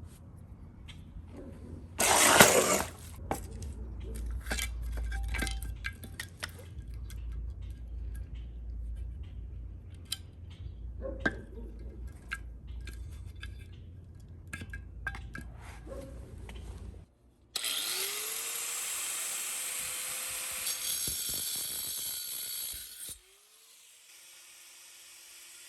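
Scattered clicks and handling knocks, then a power tool starts with a rising whine, runs steadily for about five seconds and stops abruptly.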